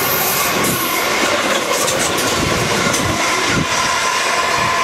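British Rail Class 317 electric multiple unit passing at speed on a non-stop run: loud, steady rush of wheels and running gear, with a few low thuds from the wheels over the track about halfway through.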